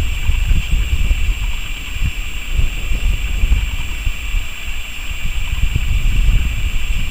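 Distant low rumble of a freight train hauled by two ST44 diesel locomotives (two-stroke V12 diesels), mixed with wind buffeting the microphone in gusts. A steady high hiss runs over it.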